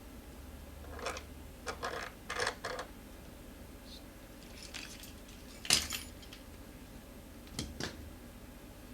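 Short metallic clinks and knocks of the e-scooter's rear wheel axle being worked against the fork dropouts, not seating: a cluster of several light knocks, a sharper, louder one a little before the middle of the second half, and two more near the end.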